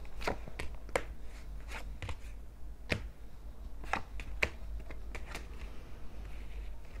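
Tarot cards being dealt from a deck and laid down on the table: a string of irregular sharp clicks and snaps of card against card.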